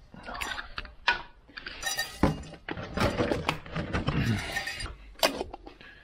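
Clinks, knocks and rattles of hard objects being handled and moved about on a cluttered wooden shelf.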